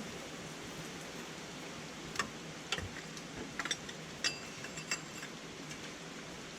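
Several light, sharp clicks and taps of hand work on a car's oil filter in a tight spot, over a steady hiss.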